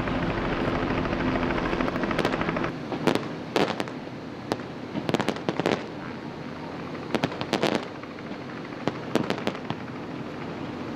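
A steady motor drone that drops away after about three seconds, then clusters of sharp pops and bangs, several in quick succession at a time, every second or so.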